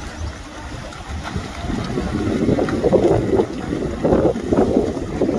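Freestyle swimmers splashing as they race past, the splashing getting louder from about two seconds in, over wind buffeting the microphone.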